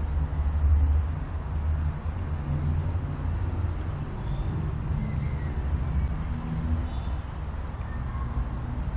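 Steady low rumble of road traffic, with short, high, falling bird chirps every second or so.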